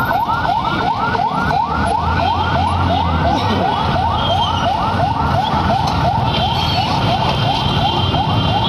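Electronic siren in a fast yelp: rising sweeps that repeat about three times a second without a break, over a low street rumble.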